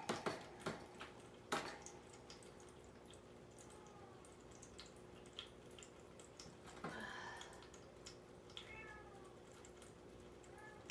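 Kitten meowing, a few faint separate meows with the clearest about seven seconds in. It is crying to be let out of a cage while fasting before neutering. A couple of light clicks sound in the first two seconds.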